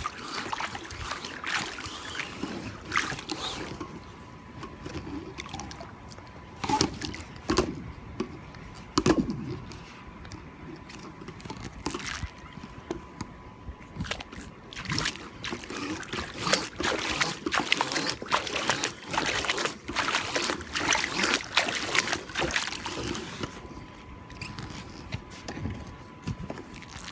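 Vacuum hose being fed down into pool water, with irregular splashing, sloshing and trickling as the hose fills with water to prime a siphon.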